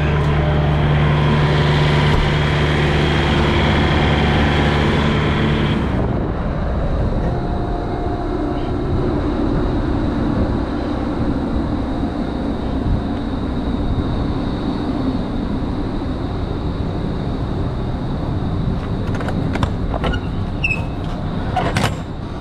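A semi-truck's diesel engine running steadily, heard from inside the cab. About six seconds in, it gives way to a steady, noisier engine drone heard outside beside the trailer, with a few sharp clicks near the end.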